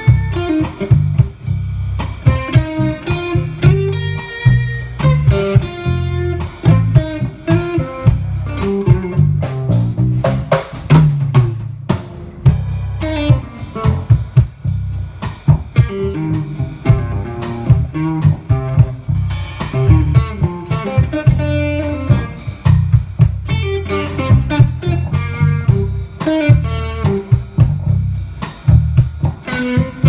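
Live rock band playing instrumentally: electric guitar over bass guitar and a drum kit, as a band sound check through the stage amps.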